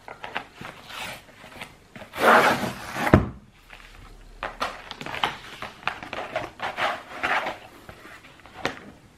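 Paper and cardboard packaging being handled: irregular rustling and scraping, with a louder rustle about two seconds in that ends in a sharp knock. Near the end a cardboard book mailer is lifted and its flap worked at.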